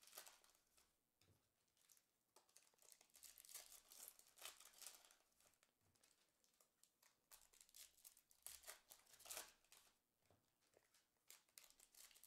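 Faint crinkling and tearing of a foil trading-card pack wrapper being opened by hand, with short rustles of the cards being handled and stacked, coming in scattered clusters.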